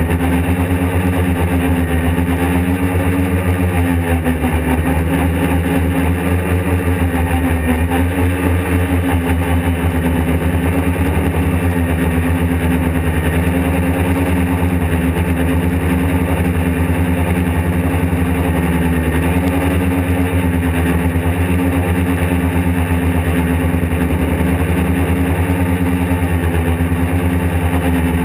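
Quadcopter's electric motors and propellers buzzing steadily, heard close up from on board, the pitch wavering slightly every few seconds as the throttle changes.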